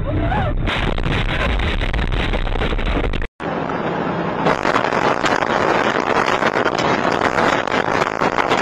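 Dashcam recordings of vehicles driving at speed: steady road and wind noise. It is broken by a brief dropout about a third of the way in, where one recording cuts to the next.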